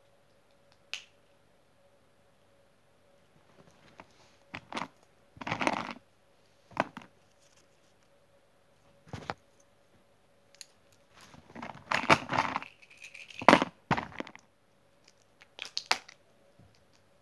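Irregular handling noise of small fabric and plastic pieces worked close to the microphone: scattered clicks, rustles and short scrapes, with a faint steady hum underneath.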